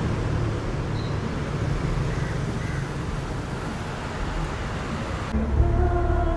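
Busy city street ambience: steady traffic rumble, with a couple of faint bird calls near the middle. Near the end the sound changes abruptly, and a vehicle engine note comes in.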